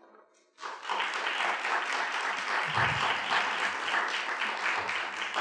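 Audience applauding, the clapping breaking out about half a second in and holding steady.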